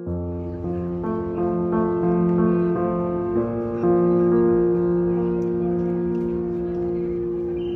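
Instrumental background music with held chords and notes that change every half second or so.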